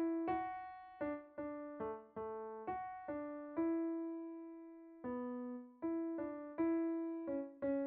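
Solo piano music: a slow, simple melody of single struck notes, each fading away, with one longer note held through the middle.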